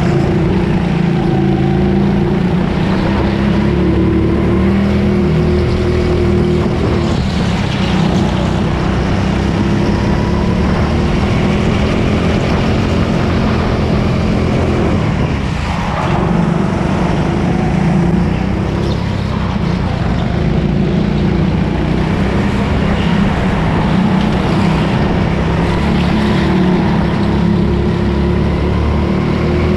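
Go-kart engine running hard at racing speed, its pitch shifting as it is driven, with a clear dip and climb again about halfway through.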